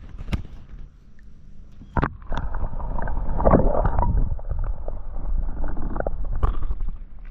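Water splashing and sloshing around a kayak with a few sharp knocks. It grows much louder about two seconds in.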